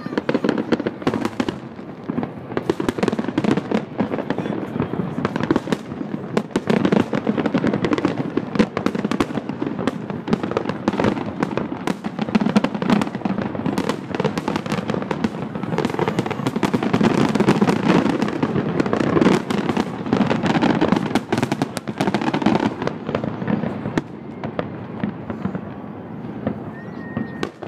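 Aerial fireworks display: a dense, continuous barrage of bangs and crackles from shells bursting. It thins out and dies down in the last few seconds.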